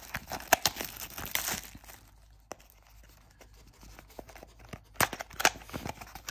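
Clear plastic wrap being torn and crinkled off a trading card box for the first two seconds. Then quieter handling of the cardboard box and its sleeve, with a couple of sharp clicks about five seconds in.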